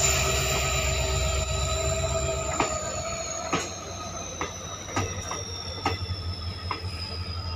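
Passenger coaches rolling slowly past, their wheels squealing against the rail in several steady high tones, the highest sliding slowly down in pitch. From about two and a half seconds in, knocks of wheels over rail joints come about one or two a second.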